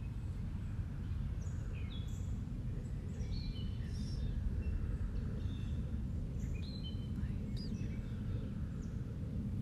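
Wild birds calling: many short chirps and whistled notes, some rising or falling, over a steady low rumble.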